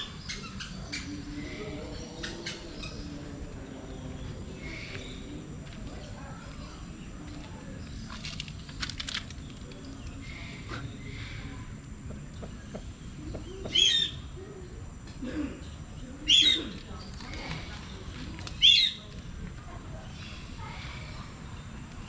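Birds calling in an aviary: scattered softer chirps throughout, and three loud, short, sharp calls about two seconds apart in the second half.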